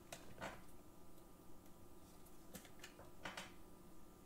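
Near silence: room tone with a few faint, scattered clicks and taps, from plastic card cases or a keyboard.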